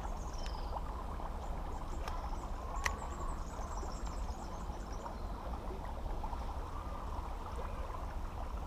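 Steady outdoor background of a flowing creek, with two light sharp clicks about two and three seconds in and faint high chirps around the middle.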